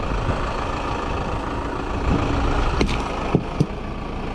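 Farm tractor engine running while it works a front-end loader, with three short, sharp knocks a little under three seconds in.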